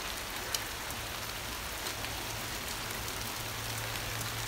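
Heavy rain falling on leaves: a steady even hiss with the sharp clicks of large raindrops striking close by, one louder about half a second in.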